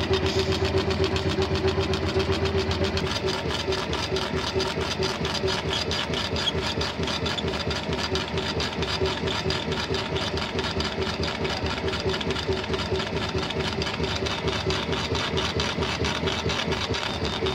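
40 W laser engraving machine raster-engraving a design into a wooden plank: its head motors whir in rapid back-and-forth passes over a steady machine hum. A deeper hum underneath drops away about three seconds in.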